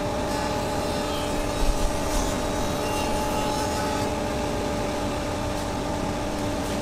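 Bandsaw running steadily with a level motor hum, with a few brief low knocks about two seconds in.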